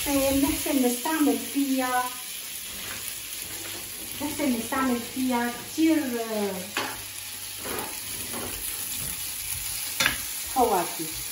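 Nectarine halves sizzling in butter in a frying pan, with a couple of sharp knocks against the pan, one about seven seconds in and one near the end.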